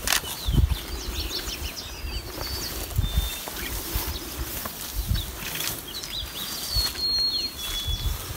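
A few short, high bird whistles over irregular low thumps and rustling.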